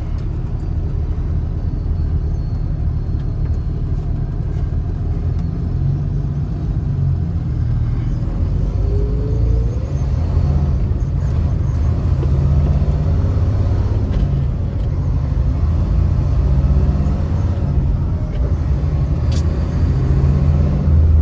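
Truck engine running steadily under load while towing a heavily loaded trailer, a continuous low rumble that swells a little now and then.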